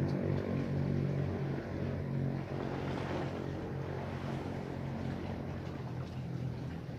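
A motor engine running steadily, slowly growing fainter.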